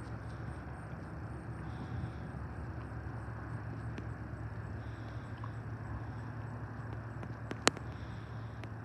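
Steady low hum, heard from shore as the drone of the lake freighter Joseph L. Block's engines, under a rough outdoor rumble. A single sharp click comes about three-quarters of the way through.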